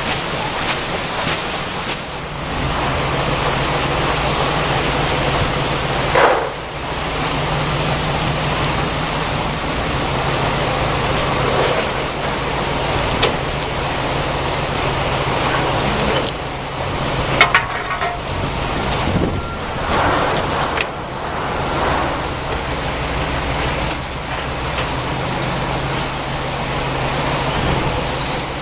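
Truck engine running steadily, with a few short knocks and rattles.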